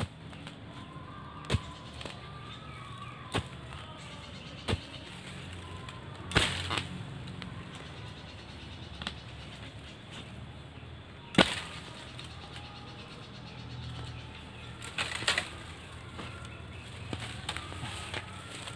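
A long metal digging bar being driven into soil and roots at the base of a bamboo clump to dig it out. It makes about ten sharp, irregular strikes a second or more apart, the loudest about eleven seconds in, with rustling of dry leaves between.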